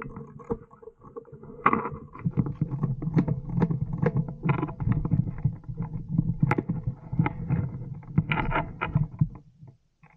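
Close handling noise: tactical gear, clothing and the rifle rubbing and knocking against the microphone as the player moves, an uneven run of clicks and knocks over a low rumble that dies away near the end.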